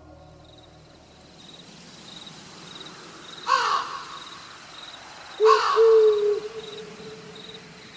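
An owl calls twice, about two seconds apart. Each call drops steeply in pitch, and the second ends in a held hoot lasting about a second. Under it runs a faint, regular, high-pitched chirping.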